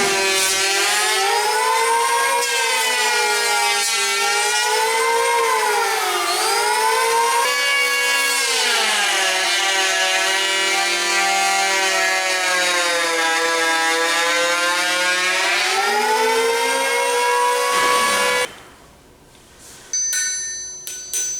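A handheld electric woodworking power tool runs with a high motor whine. Its pitch sags and recovers as it cuts into the wooden anvil stump, and the tool shuts off about 18 seconds in. Near the end a steel anvil is struck a few times and rings with clear high tones.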